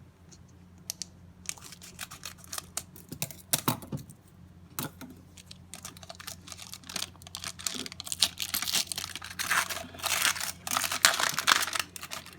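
Scissors clicking and snipping at a trading-card pack, then the plastic pack wrapper crinkling loudly for the last few seconds as it is cut and pulled open.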